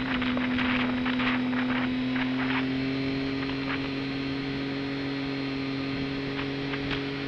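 Motorcycle engine running at steady revs, heard from on board the moving bike. Gusts of wind noise hit the microphone in the first few seconds.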